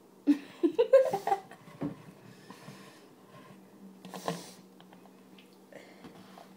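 Short breathy, throaty sounds from a girl gulping soda and breathing through her nose to build up a burp, with a cluster of them about a second in and another near the middle.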